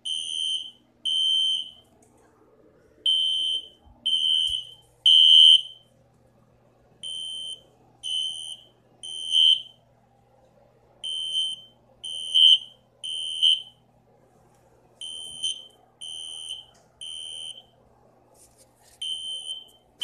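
Fire alarm sounding the three-beep temporal evacuation pattern. Groups of three high-pitched beeps, about one a second, with a pause of about a second and a half before the next group, repeating every four seconds.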